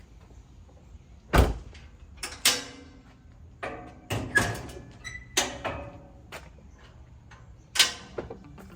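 Doors of a Toyota 4Runner being shut and gear being handled: a series of about ten sharp thunks and knocks, the loudest about a second and a half in and another near the end.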